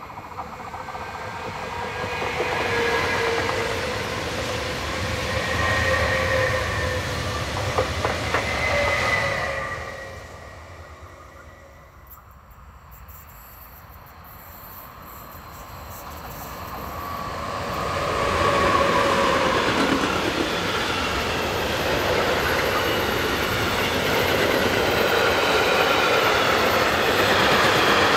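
A Stadler FLIRT electric multiple unit passes, its rail noise swelling and dying away over about ten seconds. After a few quieter seconds, a long intermodal container freight train rolls by, its wagon wheels on the rails running steadily until the end, with a few whining wheel tones.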